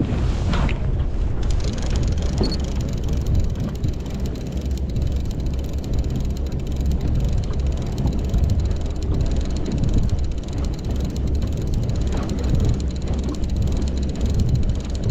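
Wind buffeting the microphone in a steady low rumble on an open fishing boat at sea.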